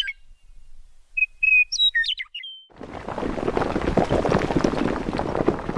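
Birds chirping in short whistled phrases. A little under three seconds in, a loud, gritty crumbling takes over: the sound effect of concrete cracking and rubble breaking away.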